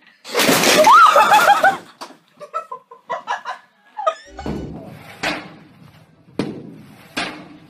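A person's voice rising into a high cry that breaks into laughter, followed by several sharp thuds about a second apart.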